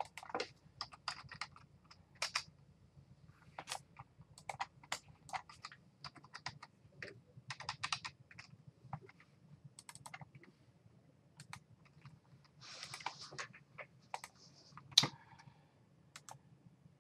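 Typing on a computer keyboard: irregular, quiet key clicks, with one sharper click near the end.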